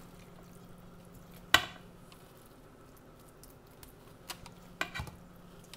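A single sharp clink of kitchenware with a short ring about a second and a half in, then a few softer clicks near the end, as cooked ground-beef filling is scooped from a metal bowl onto patty dough. A faint steady hum runs underneath.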